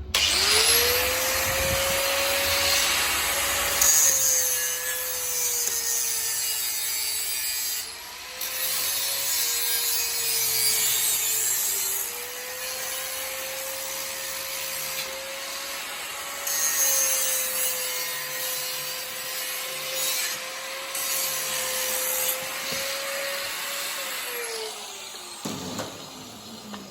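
Electric angle grinder spinning up, grinding the welds on a steel frame, then winding down near the end. Its motor whine sags each time the disc is pressed harder into the metal, under a loud grinding hiss that swells and eases.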